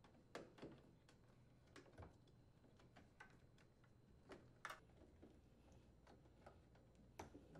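Near silence with a few faint, irregular clicks and rubs, the clearest about two-thirds of the way in: hands working a rubber washing-machine door boot seal onto the lip of the front panel.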